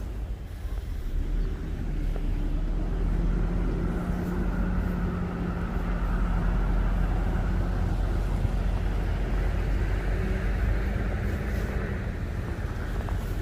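Road traffic: a steady low rumble with a motor vehicle's engine running close by, its engine tone swelling for a few seconds, fading about two-thirds of the way in, then returning briefly.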